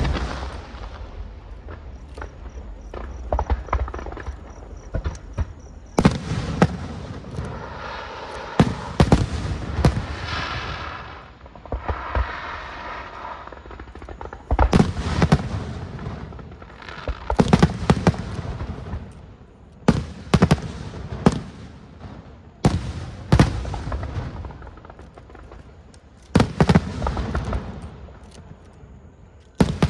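Fireworks display: clusters of sharp bangs every two to three seconds, with a stretch of dense crackling and fizzing about a third of the way through.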